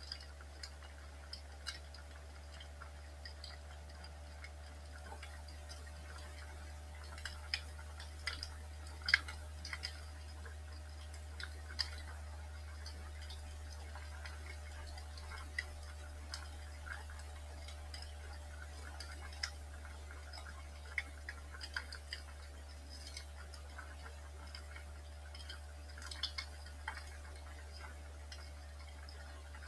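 Wood fire crackling in a fireplace: irregular small pops and snaps, with one louder snap about nine seconds in, over a steady low hum.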